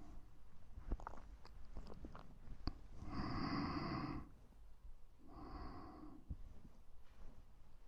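Close-microphone breathing: a long breathy exhale about three seconds in and a shorter, softer one a little after five seconds. Small mouth clicks come in the first few seconds.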